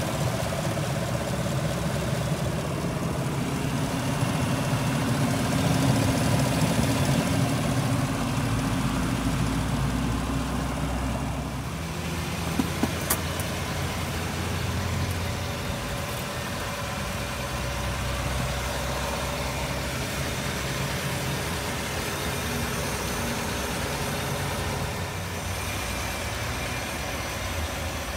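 A 2016 GMC Sierra 1500 Denali's V8 engine idling steadily, with a few short clicks about halfway through.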